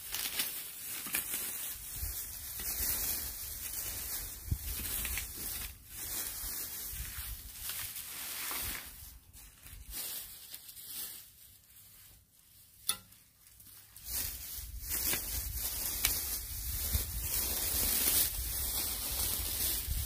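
Dry grass and dead leaves rustling and crackling as old weeds are pulled and cleared by gloved hands, easing off briefly midway.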